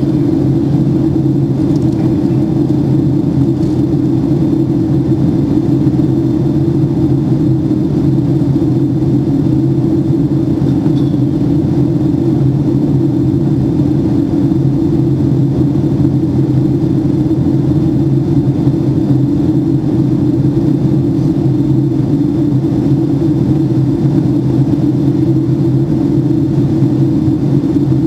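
Steady low drone of a Boeing 757-200 in flight, heard from a window seat inside the passenger cabin: engine and airflow noise that holds the same level and pitch throughout.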